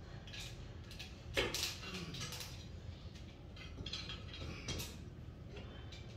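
Irregular metal clinks and scrapes from the hardware used to hang a heavy punching bag as it is worked into place at the ceiling, with a sharper knock about a second and a half in.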